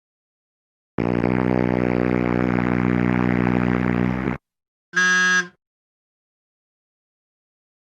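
Sound effects: a loud, low, steady buzzer tone lasting about three and a half seconds that cuts off abruptly, followed shortly after by one short horn-like beep.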